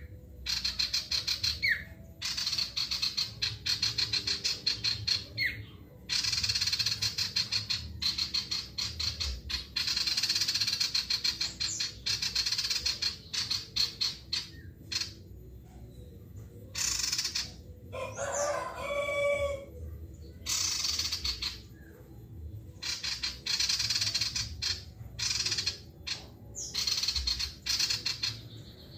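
Caged male common iora (sirtu) singing: repeated bursts of rapid, high chattering notes, each a second or two long, with short pauses between them. A rooster crows once in the background about two-thirds of the way in.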